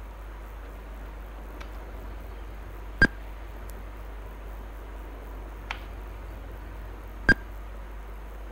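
Computer mouse clicking: two sharp clicks about four seconds apart, with two fainter clicks between them, over a steady low hum and hiss.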